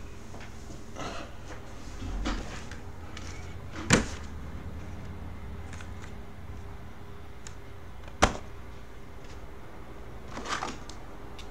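Shrink-wrapped trading-card boxes being handled: a few soft crinkles and rustles, with two sharp knocks about four seconds apart, the loudest sounds.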